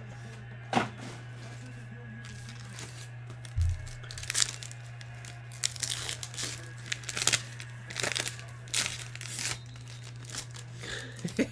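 Trading card pack wrappers being torn open and crinkled in short, sharp bursts as a box of Panini Court Kings basketball cards is broken, over a steady low hum.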